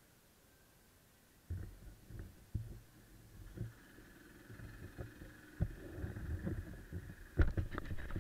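Handling noise on an action camera: muffled low thumps and rumble begin about a second and a half in, with a cluster of sharper knocks near the end.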